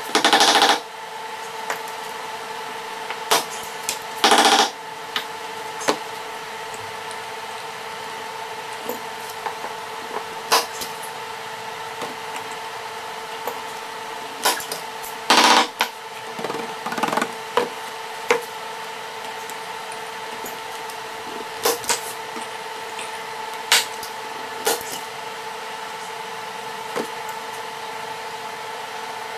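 Sharp clicks and knocks of canvas stretching work, a canvas being pulled and stapled onto a wooden frame, scattered irregularly, with three louder noisy bursts under a second long. A steady hum runs underneath.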